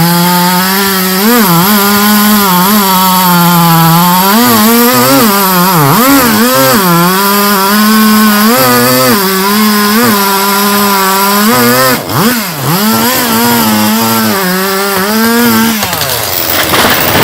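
Chainsaw engine running at high revs and cutting wood. Its pitch dips again and again as the chain bogs in the cut, then falls off near the end as the throttle is let go.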